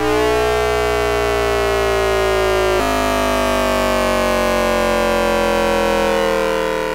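Hanshin 5500 series train's VVVF inverter noise picked up by an AM radio, heard as a buzzing stack of electronic tones with an added tone at the inverter's base frequency. All the tones fall slowly in pitch as the train slows, with a small jump in the tones about three seconds in.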